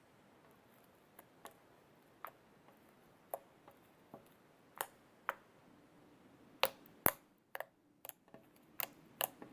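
Slime being mixed by hand, giving irregular sticky clicks and pops, sparse and faint at first and louder and more frequent over the last few seconds.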